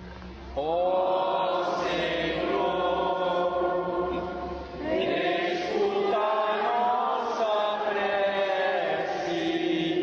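Sung liturgical chant in slow phrases on long held notes: one phrase begins about half a second in and ends near the fifth second, and a second phrase follows at once and runs on.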